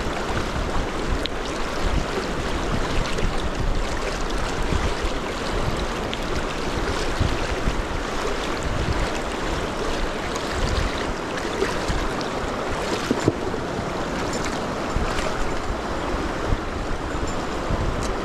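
River water rushing steadily through a fast riffle, with uneven low gusts of wind on the microphone.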